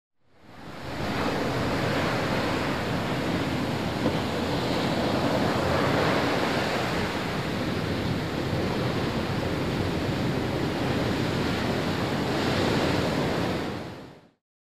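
Ocean surf: waves washing on a shore as a steady rushing noise that swells gently a couple of times, fading in at the start and fading out near the end.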